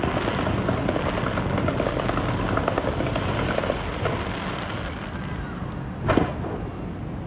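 Fireworks going off: a dense crackle of many small bursts over a low rumble, thinning out after about four seconds, then one louder bang about six seconds in.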